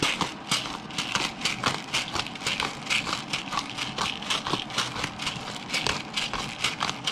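Pepper grinder being twisted to grind black pepper: a continuous run of rapid, sharp clicks, several a second.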